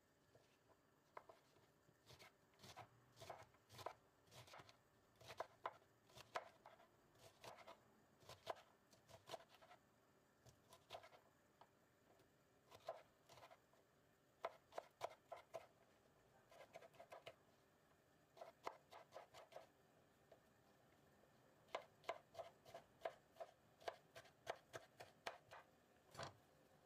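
Kitchen knife slicing fresh broad bean pods into thin rounds on a bamboo cutting board: quick runs of crisp cuts, each stroke clicking against the board, with short pauses between runs. A duller knock comes near the end.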